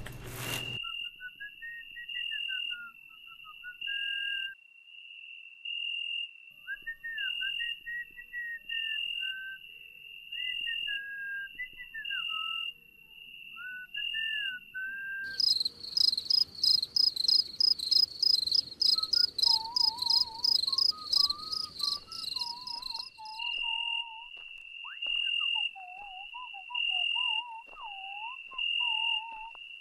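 Cricket-like chirping repeating steadily, with a gliding whistle-like melody over it. About halfway through, a louder, fast insect-like trill with a hiss takes over for several seconds, then the steady chirping and a lower whistled line return.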